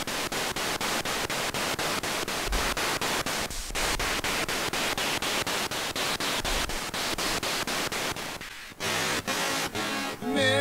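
Spirit box (radio-sweep ghost box) hissing static, chopped evenly several times a second as it scans through stations. Near the end a brief scrap of a voice breaks through the static, which the investigators take for a spirit's answer, 'died'.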